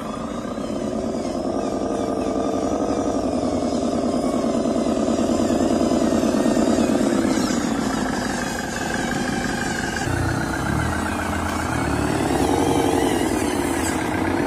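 Radio-controlled model truck's electric drive motor and gearbox whining under a full load of soil, its pitch rising and falling with the throttle.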